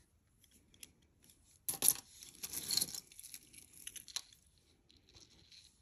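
Costume jewelry being handled on a tabletop: a few faint clicks, then about two seconds in a louder clatter of metal and glass seed beads that runs on as a rattling rustle for about two more seconds as a beaded necklace is lifted from a pile.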